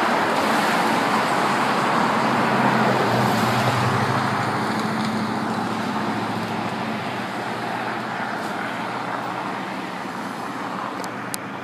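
Heavy machinery's engine running with a steady hum under a dense rumble, loudest about three to five seconds in and then slowly fading.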